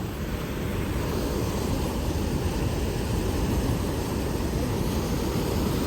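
Steady low rumble of Niagara Falls' water crashing down, heard close enough for the spray to reach the phone.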